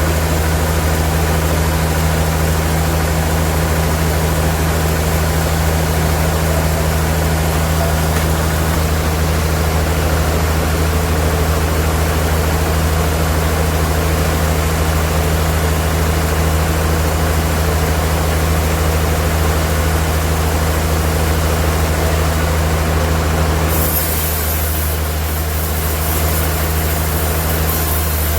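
Sawmill machinery running steadily with a deep, even hum. About 24 s in, the sound changes and a high hiss comes in.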